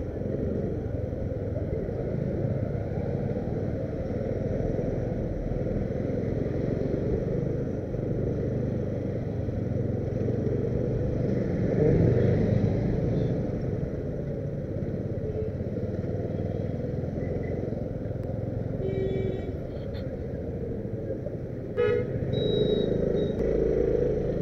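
Steady rumble of road traffic that swells briefly about halfway through. Vehicle horns toot a few times near the end.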